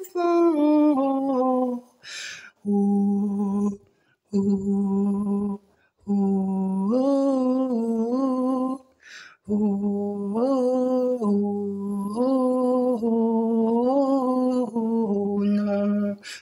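A solo voice singing without accompaniment: the last word of a line, then wordless held notes in a slow melody. Breaths are heard between phrases, about two seconds in and again near nine seconds.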